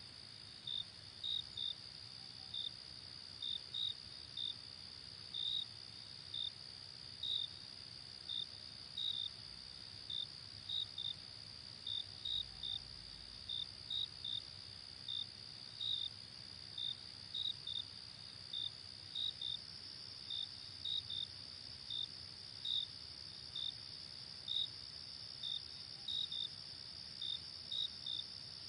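Crickets chirping at night: short high chirps, one or two a second and often in pairs, over a steady high-pitched hiss.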